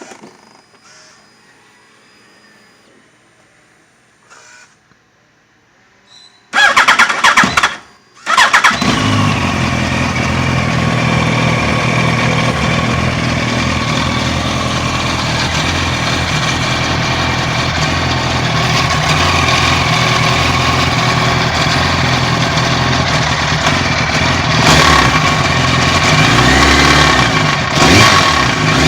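2007 Yamaha R1 inline-four engine cranked on the starter for about two seconds, catching about two seconds later and then idling steadily, with two brief throttle blips near the end. The idle carries the rattle the owner cannot identify.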